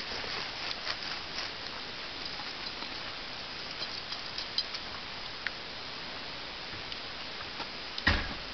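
Wolf-hybrid puppy's paws scraping and digging in snow, scattered light taps and scratches. A single loud thump comes near the end.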